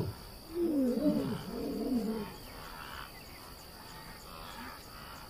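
Lion finishing a roaring bout with a few short grunts that fade out over the first two seconds or so. After that only a faint, steady chirring of night insects remains.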